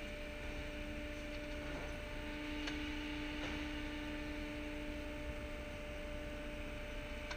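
Steady machinery hum, one constant low tone with its overtones over a low rumble, with a couple of faint clicks about three seconds in.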